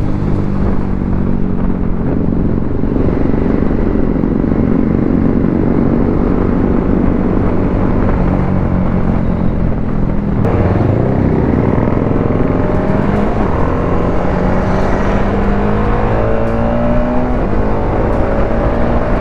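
BMW G 310 RR's single-cylinder 313 cc engine heard on board while riding, pulling hard with its pitch rising through the gears again and again.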